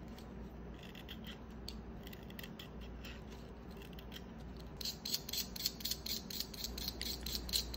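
A utility knife shaving wood and graphite from a pencil: a series of short scraping strokes that are faint at first and become louder and quicker from about five seconds in.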